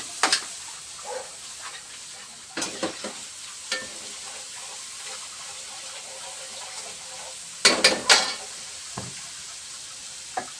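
Food sizzling steadily in hot oil in a frying pan while it is stirred, with a metal spatula clinking and scraping against the pan a few times, loudest in a quick run of knocks about eight seconds in.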